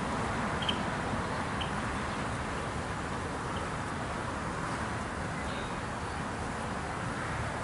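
Honeybees humming around an open hive under a steady rumble of wind on the microphone, with a few faint high ticks in the first few seconds.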